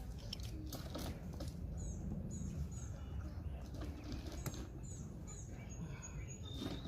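Light clicks and taps of parts being handled, with several short, high falling chirps, most likely birds, over a steady low background rumble.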